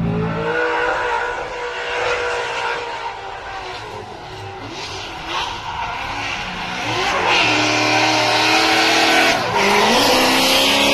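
Drift cars in a tandem run, engines revving up and down at high rpm against the hiss and squeal of sliding tyres.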